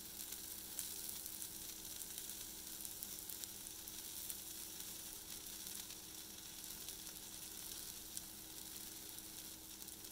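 Banana pancake frying in a nonstick pan, its second side cooking after the flip: a steady, soft sizzle with fine crackles. A faint steady hum sits underneath.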